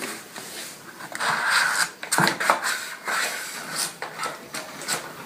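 A glue board being slid into the metal housing of an MGI wall-mounted insect trap and the housing handled: a scraping slide from about one to two seconds in, then several sharp clicks and knocks.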